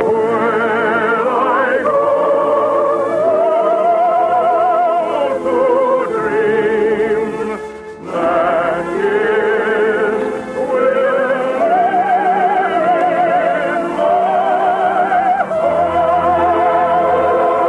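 Operatic soprano singing long phrases with strong vibrato over an orchestra, on an old radio broadcast recording with the treble cut off.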